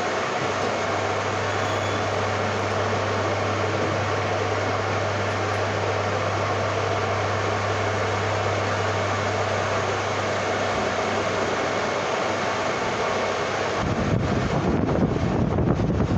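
Lathe running steadily, an even machine noise with a low hum. About 14 seconds in the hum stops and a gusty rumble of wind on the microphone takes over.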